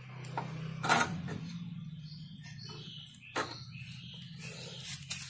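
A few sharp clicks and knocks, the loudest about a second in, as an antenna plug is pushed into the back of an opened CRT television, over a steady low hum.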